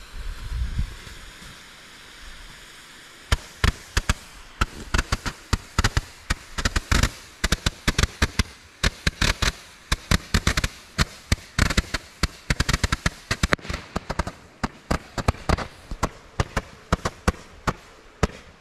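Consumer fireworks going off: starting about three seconds in, a long, rapid, irregular run of sharp cracks and pops, several a second, lasting about fifteen seconds.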